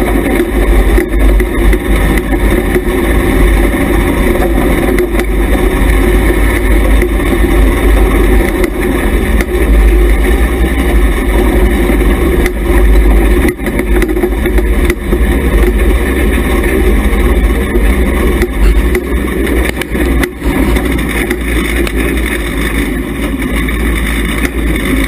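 Hobby stock race car's engine running steadily at low speed, heard from inside the car with a heavy low rumble.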